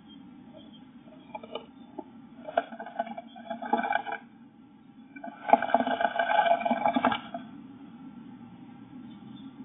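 A great tit moving inside a nest box, its claws scrabbling and scraping on the floor and walls: a few light taps, then scratching, and a louder bout of scrabbling about halfway through that lasts nearly two seconds. A steady low hum runs underneath.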